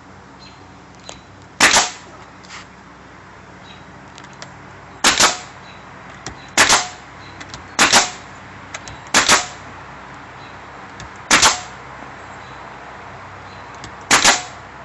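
Consumer firework shells going off in succession: seven sharp bangs at uneven intervals of one to three seconds, each a quick double crack.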